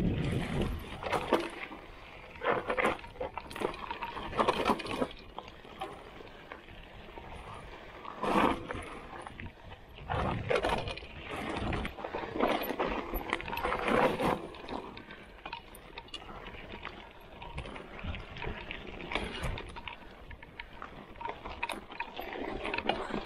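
Trek Roscoe 7 hardtail mountain bike ridden down a trail: tyres rolling on dirt and the chain and frame rattling and clattering over bumps, in irregular louder bursts.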